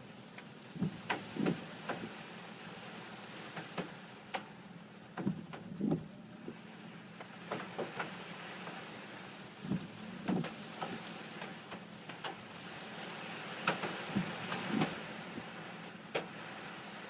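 Gale-force storm wind with a steady hiss, and irregular knocks, clacks and low thuds from things rattling in the gusts. The knocks come singly or in quick clusters.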